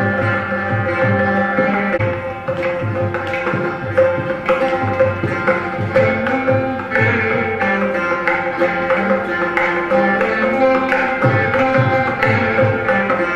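Carnatic ensemble of three Saraswati veenas plucking a melody together, accompanied by steady strokes on a mridangam and a ghatam.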